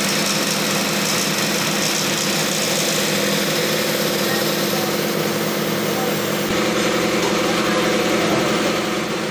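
Truck-mounted crane's engine running steadily, with the sound shifting about six and a half seconds in.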